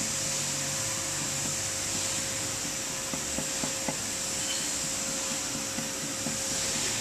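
Handheld electric grinder running steadily on granite, grinding cured glue and resin off a filled seam, with a steady motor whine and a few small ticks about halfway through.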